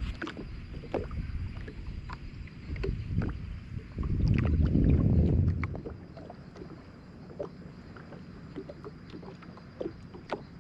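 Wind buffeting the microphone, with a strong gust about four to six seconds in, over small scattered taps and knocks around a wooden canoe on the water.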